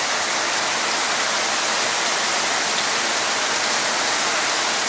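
Heavy tropical rain falling in a steady downpour, an even hiss of rain on the ground and roof.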